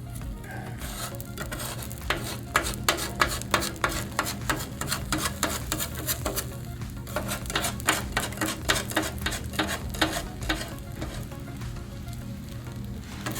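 Eggs sizzling on a Blackstone flat-top griddle while a metal spatula scrapes and taps quickly and repeatedly against the steel cooktop, working the big omelette. The strokes start about two seconds in and thin out near the end, leaving the sizzle.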